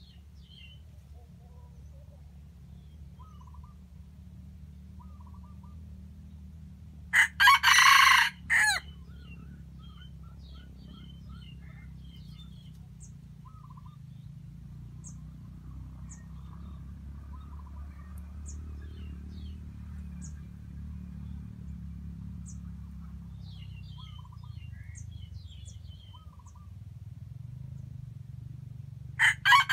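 Junglefowl rooster crowing: one short crow broken into a few phrases about seven seconds in, and another starting right at the end. Faint small-bird chirps come and go over a steady low rumble.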